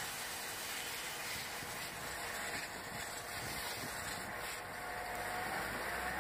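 Abrasive sheet pressed against a spinning car brake disc driven by the engine in first gear: a steady scraping hiss. The glazed, shiny disc face is being roughened to cure brake pedal judder.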